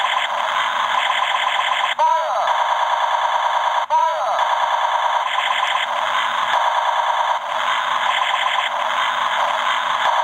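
Knockoff Gobots convertible laser-gun toy, battery-powered, playing its electronic gun sound effect: a thin, fast, rattling stream of electronic pulses. A swooping tone cuts in twice, about two and four seconds in.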